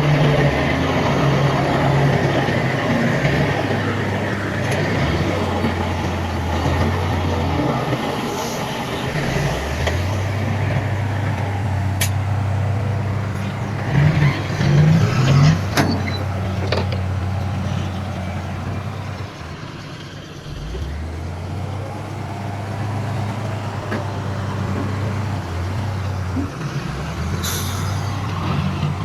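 Heavy diesel earthmoving machinery, dump trucks and a bulldozer, running steadily, the engine note dropping and picking up again twice. There is a louder uneven stretch about halfway through, a few sharp clicks, and a short hiss near the end.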